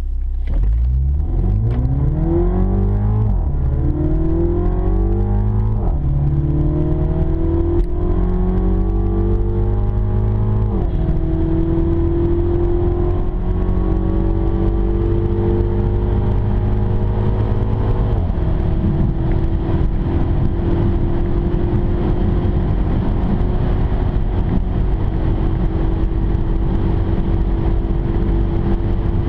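2015 Mini John Cooper Works' turbocharged 2.0-litre four-cylinder engine heard from inside the cabin, accelerating flat out from a standstill. The pitch climbs in each gear and drops at four automatic upshifts, about 3, 6, 11 and 18 seconds in. After the last shift it runs as a steady drone, rising only slowly in top gear at over 200 km/h.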